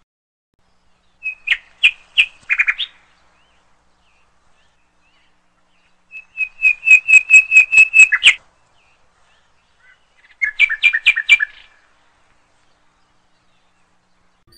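A bird singing: three short phrases of quick, repeated high chirps, the middle phrase the longest.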